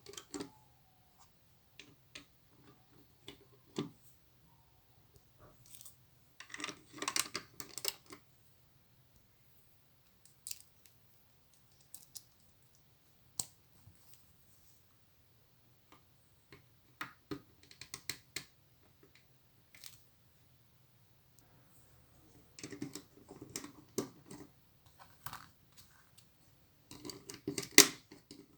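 Plastic Lego pieces being handled and snapped together: scattered single clicks, with a few short spells of clattering as loose pieces are picked through.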